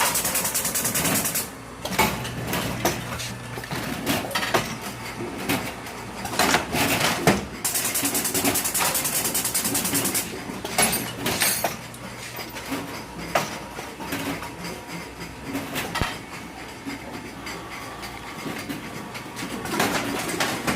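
Automatic cherry tomato packing machine running, with scattered clicks and knocks, stretches of high hiss that come and go, and a low steady hum through the first half.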